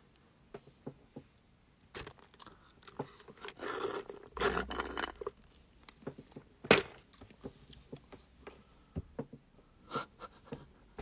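Handling noise close to the phone's microphone: scattered small clicks and rustling, with a louder rustle about four and a half seconds in and a sharp click soon after.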